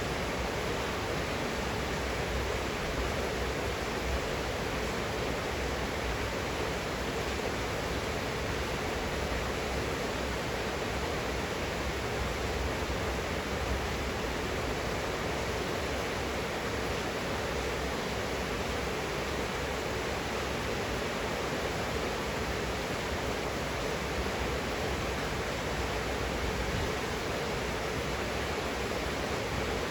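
Rain falling steadily: an even, unbroken hiss with no separate drops or knocks standing out.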